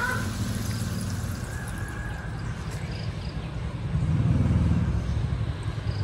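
Pumped water from a hose churning into a shallow pond, heard as a low steady rumble that swells about four seconds in.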